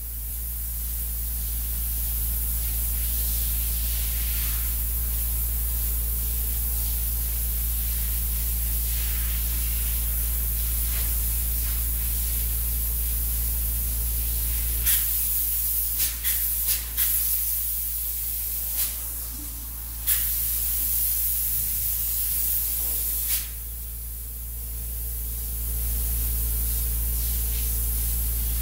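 Spray-foam gun spraying closed-cell polyurethane insulation foam with a steady hiss over a continuous low hum, with several short, louder hisses in the middle stretch.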